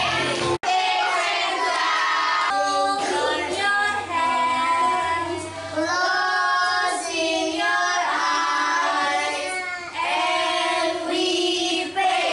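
Young children singing a song together, with a woman's voice among them. The sound cuts out for an instant about half a second in, then the singing carries on.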